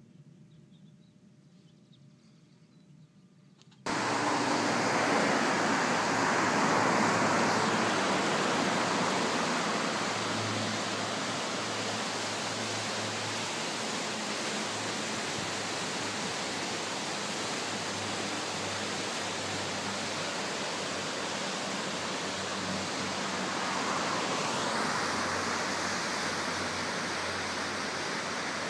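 Faint outdoor quiet, then about four seconds in a sudden cut to the steady rush of a mountain creek's whitewater rapids.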